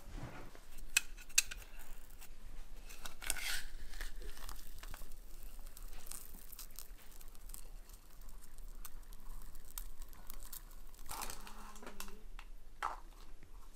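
Metal potato ricer being squeezed by hand, cooked potato pressed through its holes, with quiet squishing and rustling and a few clicks of the metal handles and basket.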